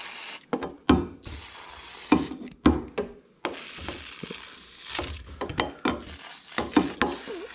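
Aerosol can of Evap Foam No Rinse coil cleaner spraying foam onto an ATV radiator in several hissing bursts, the longest about three and a half to five seconds in, with short knocks from handling between them.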